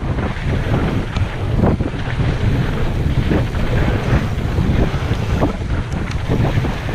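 Wind buffeting the microphone of a mountain biker's action camera at speed, over a steady rumble of tyres on a dirt trail, with scattered short rattles from the bike.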